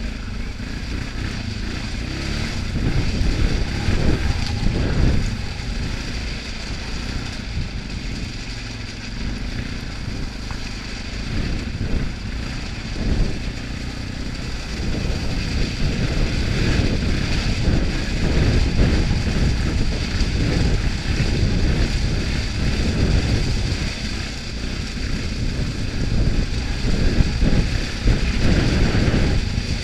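Four-wheeler (ATV) engine running under way, mixed with tyre noise on gravel and wind noise, its loudness rising and falling a little with the throttle.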